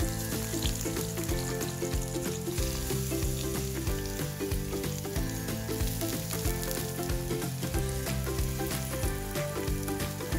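Sliced brinjal (eggplant) sizzling in hot oil in a small wok as handfuls of slices are dropped in to fry, with background music underneath.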